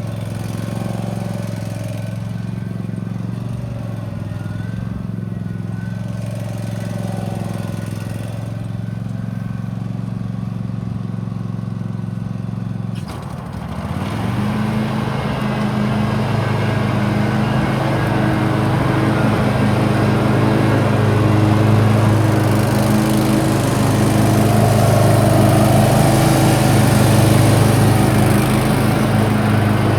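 John Deere Z445 zero-turn mower engine idling steadily, then sped up about halfway through, settling into a higher, louder steady run.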